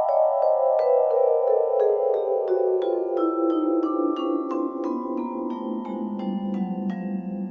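Vibraphone played as a slow descending run of single mallet strikes, about three notes a second. Each bar rings on under the next. The last note is struck near the end and left ringing.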